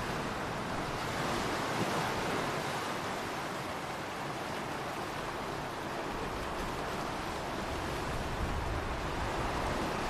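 Ocean waves washing onto a shore, a steady surf sound that swells and eases slowly.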